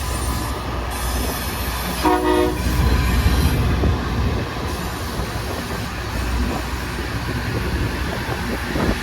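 Rail grinder train grinding the rail: a loud, steady rumble and harsh hiss. A short horn blast sounds about two seconds in.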